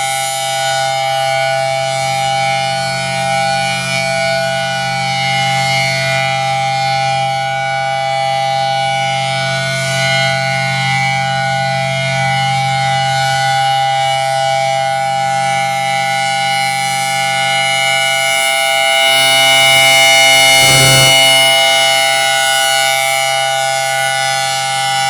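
Federal Signal Thunderbolt 1000T outdoor warning siren sounding a steady, unchanging tone during its monthly test, swelling louder for a few seconds near the end.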